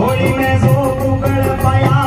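Live Rajasthani folk devotional music: a held keyboard melody over a steady beat of hand drum and jingling percussion.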